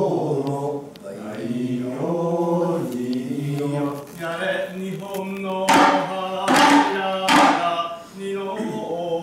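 Goten manzai chant: drawn-out chanted singing in held notes, with three sharp strokes of tsuzumi shoulder drums a little under a second apart, about six seconds in.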